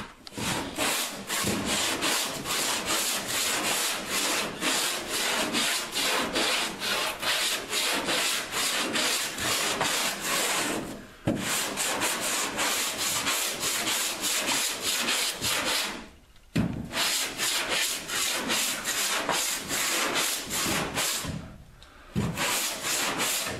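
Body filler being hand block-sanded with 80-grit sandpaper on a sanding block: quick, even back-and-forth rasping strokes, stopping briefly three times.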